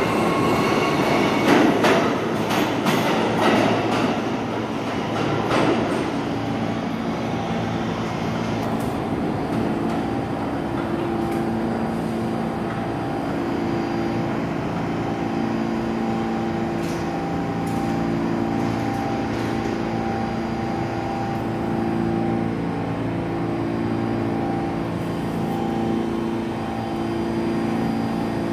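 New York City subway train pulling out of the station: a loud run of sharp wheel clacks over the rail joints for the first several seconds, then a steadier rumble and hum with held tones as it moves off into the tunnel.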